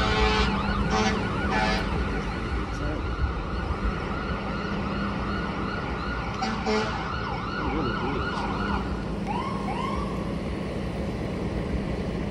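An emergency vehicle's siren in a fast yelp, rising and falling about three times a second, dying away about nine seconds in with two last slower sweeps. Under it runs a steady hum of road traffic.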